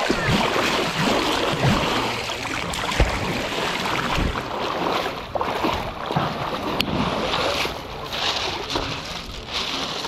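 Sea water splashing and sloshing close against a camera held at the surface and dipped in and out of the shallows, with irregular splashes and a rushing churn of water.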